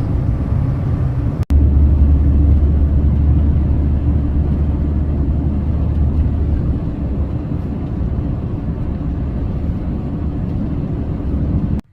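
Vehicle driving, heard as a steady low rumble of engine and road noise. It is cut off sharply once, about a second and a half in, then carries on with a stronger deep rumble for a few seconds.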